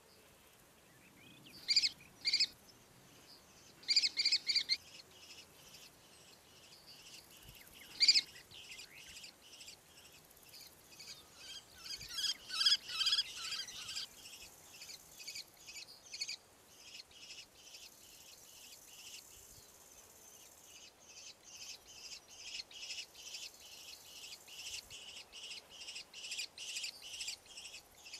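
Common kestrels calling: a few sharp, loud calls in the first eight seconds, a denser burst of calls around the middle, then a steady run of short repeated calls, about two or three a second, growing louder toward the end.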